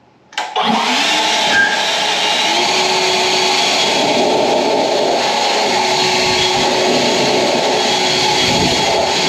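EGO LB7650 56V cordless leaf blower switching on about half a second in and running steadily at full turbo power: a loud, even rush of air.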